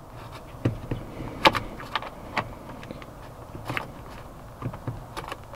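Irregular small clicks and taps of a thin screwdriver probing in the release hole at the back of a Chevy Silverado steering wheel, pushing against the airbag's spring-loaded metal clip. The sharpest click comes about a second and a half in.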